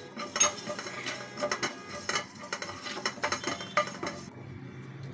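Wooden spatula stirring whole coriander seeds as they dry-roast without oil in a nonstick frying pan: a busy run of light clicks and scrapes as the seeds rattle across the pan. The stirring stops about four seconds in.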